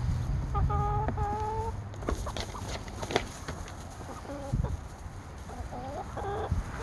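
Backyard hens clucking and calling while they feed on scraps. A drawn-out call comes about a second in, a few sharp clicks follow, and more short clucks come near the end.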